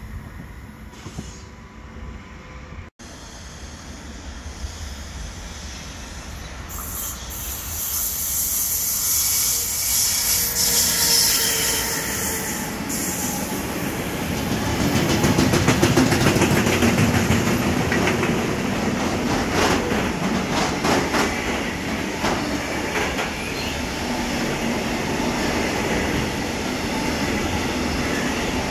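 Long container freight train rolling past close by, growing louder after the first several seconds. A rumble of the wagons comes with a high hissing squeal from the wheels and repeated clacking over rail joints.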